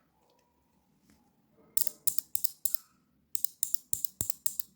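Small 12 V relay clicking as its coil is switched on and off from a 12 V DC adapter, its contacts changing over each time. The relay is working: a quick, irregular string of about a dozen sharp clicks begins about two seconds in.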